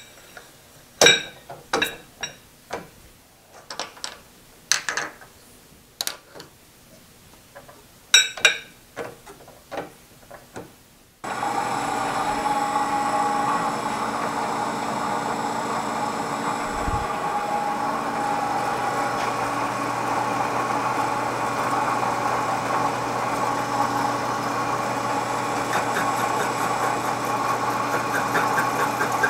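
Sharp metallic clicks and knocks of hands setting up work on a vertical milling machine, then about 11 seconds in the mill's spindle motor switches on and runs steadily with a hum and whine.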